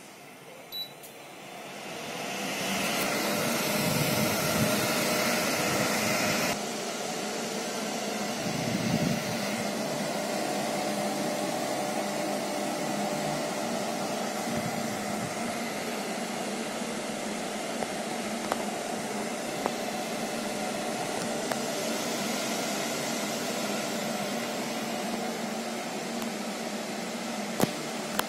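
Geek Ikuku A2 air purifier's fan starting: a short beep from the touch panel, then a rising whoosh of air as the fan spins up. The noise is loudest for a few seconds, drops abruptly to a lower level about six seconds in, and then runs on as a steady even whir with a low hum.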